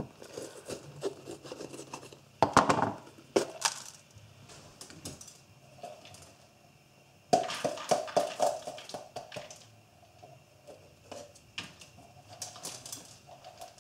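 Kitchen handling sounds: scattered knocks and clatter with some tearing and rustling, louder about two and a half seconds in and again about seven seconds in.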